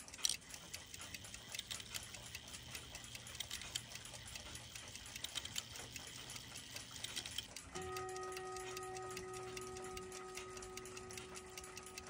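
Ticking of a 1926 Chelsea ship's bell clock movement: a quick, even run of faint ticks. About eight seconds in, a faint steady hum with several pitches comes in under the ticking.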